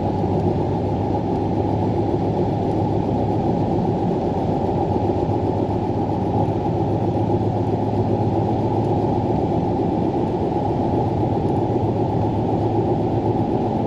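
Steady vehicle drone heard from inside the cab while driving on a snowy road: engine and tyre noise with a low, even hum.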